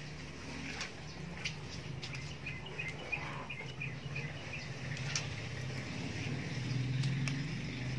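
A bird chirping a quick run of short notes about two and a half seconds in, over a steady low hum and a few light clicks.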